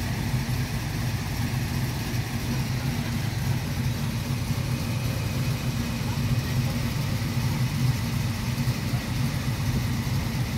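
Classic car engines idling steadily in a queue, the nearest a 1955 Chevrolet, with a low, slightly uneven hum.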